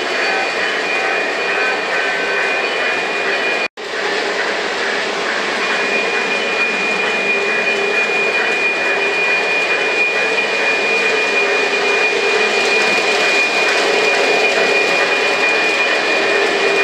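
Lionel O gauge model trains running on three-rail track: a steady rolling rumble with a thin, steady high whine. The sound drops out briefly about four seconds in, then grows slightly louder toward the end.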